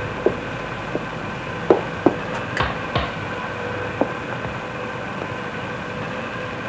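Irregular knocks and light clatter as round cake bases are picked up and set down on a wooden counter, about seven in the first four seconds, over a steady hum.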